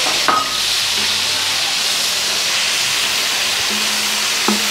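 Red chili paste (prik gaeng) sizzling steadily in hot oil in a large wok as it is stirred with a metal ladle. The ladle knocks briefly against the wok about a third of a second in and again near the end.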